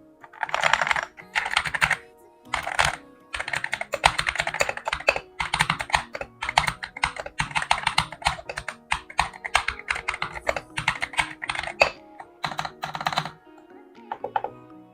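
Fast typing in bursts on a GMK67 mechanical keyboard with stock pre-lubed KTT Kang White V3 linear switches, XDA-profile keycaps and PE foam under the switches: a dense clatter of keystrokes with short pauses, stopping about thirteen seconds in.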